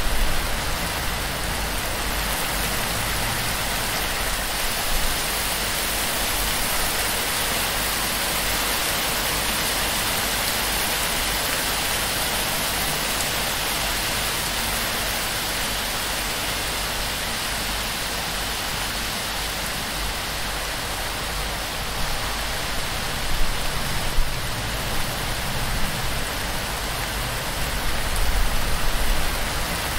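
Heavy torrential rain on a palm-thatch roof: a steady, dense hiss of rain. A few brief, louder low thumps come in the last third.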